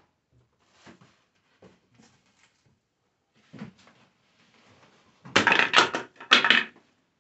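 A cardboard box and plastic packaging being handled: scattered soft rustles and knocks, then two loud crackling bursts of cardboard near the end.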